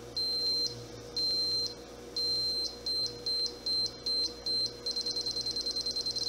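High-pitched electronic feedback beeps, one for each frequency step, as a potentiometer steps the hacked Stryker 955 radio down in frequency. Three longer beeps come about a second apart, then shorter ones quicken into a rapid run of about ten a second near the end. A faint steady electrical hum sits underneath.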